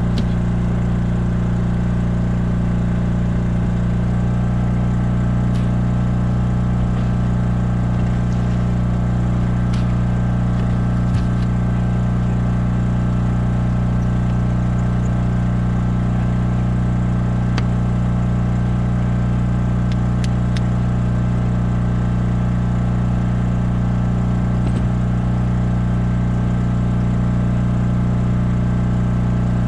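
A generator running at a steady speed, giving a constant hum with no change in pitch, with a few faint clicks and knocks from handling on the boat deck near the middle.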